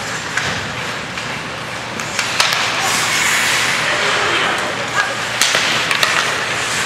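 Ice hockey play: skate blades scraping and hissing across the ice, with several sharp clacks of sticks and puck.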